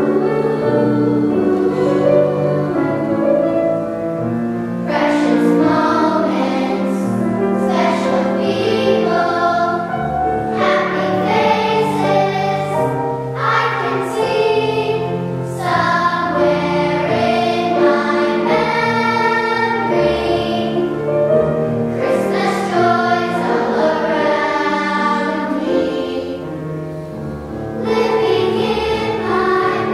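Girls' choir singing with grand piano accompaniment, the sung line held in long notes; the choir falls softer and then comes in louder again near the end.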